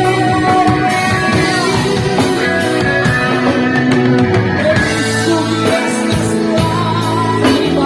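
Live rock-style band playing an instrumental passage: drum kit, electric guitars, bass guitar and keyboard, with sustained chords and gliding guitar lines over a steady beat.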